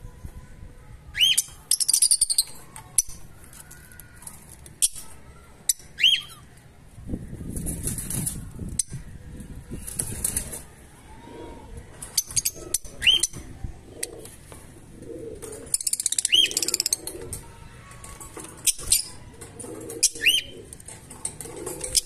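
Fischer's lovebirds in a wire cage giving short, sharp, rising chirps every few seconds, with softer chattering in between. Wings flap in rushing bursts, and sharp clicks come in among them.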